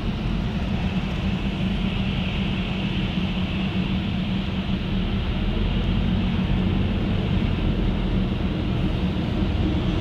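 A car driving at a steady pace: continuous road and tyre noise with a low engine hum, unchanging throughout.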